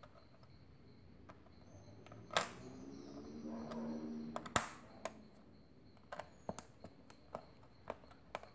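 LEGO plates clicking and tapping against each other and the hard tabletop as they are handled and pressed together: two sharper clacks about two and four and a half seconds in, then a run of small light clicks near the end.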